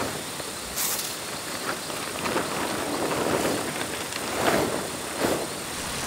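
Plastic tarpaulin rustling and crinkling in irregular bursts as it is dragged and spread over a concrete slab.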